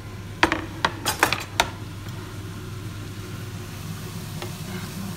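A quick run of about seven sharp clattering knocks, kitchen utensils striking a frying pan, bunched into the first two seconds. A steady low hum runs underneath.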